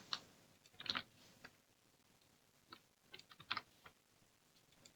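Faint computer keyboard typing: a few scattered key presses, with a short run of keystrokes about three and a half seconds in.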